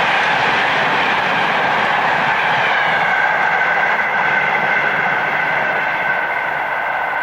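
Electric locomotive-hauled train passing at speed: a loud, steady rush of wheel and rail noise with a thin high whine running through it. It begins to ease off near the end as the train draws away.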